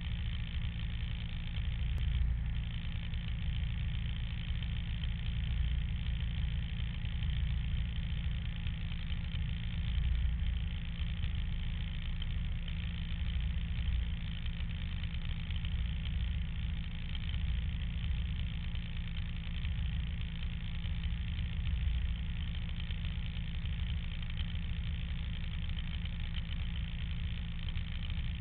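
Snowmobile engine idling steadily close by, a low rumble with small swells in level.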